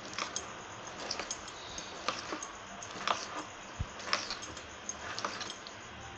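Thick idli batter, seasoned with cumin, ajwain, chillies and salt, being mixed and beaten in a bowl, with irregular light clicks about once or twice a second.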